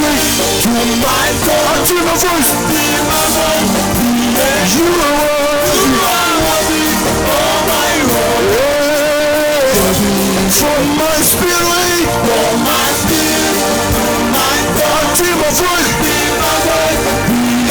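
Live gospel worship music: a band playing with sung vocal lines over a steady beat.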